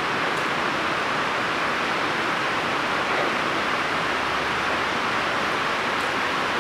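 Steady rain on the roof of an indoor riding arena: an even hiss that stays level and loud enough that people have to talk over it.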